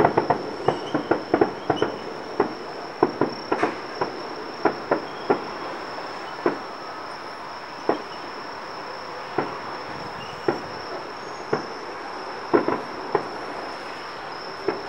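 Distant aerial fireworks going off: a quick string of bangs for the first few seconds, then single reports about a second apart, with a short burst of several near the end. A steady high-pitched insect trill runs underneath.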